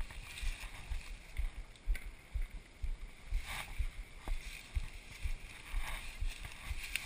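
Irregular low bumps and rumble from a chest-mounted GoPro HD Hero as the wearer's body moves and the housing is buffeted, over a soft hiss, with a couple of faint clicks around the middle.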